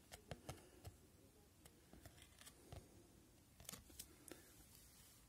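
Faint, scattered clicks and taps of hockey trading cards being handled and set down.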